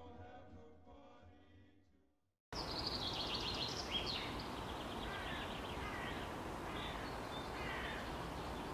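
Quiet music fades out to silence, then outdoor ambience begins suddenly: a steady hiss of background noise with birds chirping and trilling over it in short repeated phrases.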